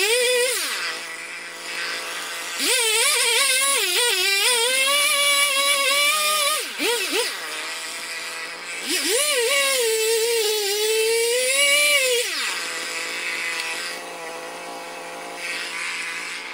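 Husqvarna 55 two-stroke chainsaw cutting birch logs: it revs hard at the start, drops to idle, then goes to full throttle for two cuts of about four and three seconds, its pitch sagging and wavering under load. Between the cuts it gives a short blip, and after the second cut it settles back to a steady idle.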